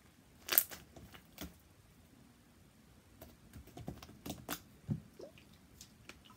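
Sticky homemade slime, made sticky with body wash, being stretched and slapped on a table, giving wet pops and crackles. The loudest pop comes about half a second in, and a denser run of pops follows from about three to five seconds in.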